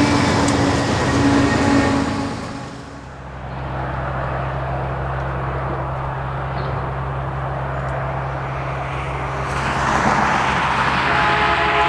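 Freight train rumbling past, fading out about three seconds in. A steady low diesel locomotive drone follows and grows louder from about ten seconds in as a train approaches. Near the end the locomotive's multi-tone air horn starts to blow.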